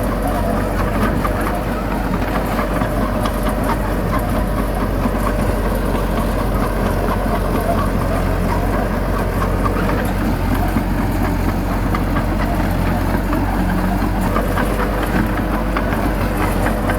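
Heavy diesel engine of earthmoving machinery running steadily, with a constant low drone and light rattling throughout.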